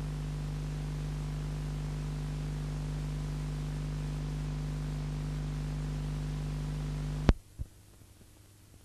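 Steady electrical mains hum with hiss on the audio track of a videotape, left running past the end of the recording. About seven seconds in, a sharp click cuts the hum off, a smaller click follows, and only faint tape hiss remains as the picture turns to snow.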